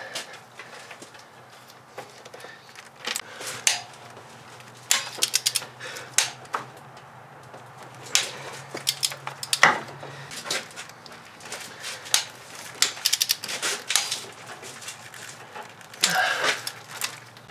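Ratchet wrench and socket clicking and clinking on the engine as cylinder head bolts are given their final angle-torque turn of 120 degrees through a torque angle gauge. Irregular clicks come in short clusters, with a quick run of clicks about a second before the end.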